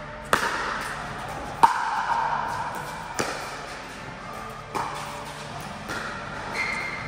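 Pickleball rally: paddles striking the hollow plastic ball in a string of about six sharp pops, one every second or so, the loudest near the start, each ringing briefly in a large hall.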